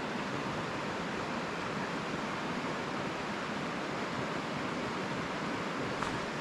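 Steady rush of a mountain stream's flowing water, with a faint click near the end.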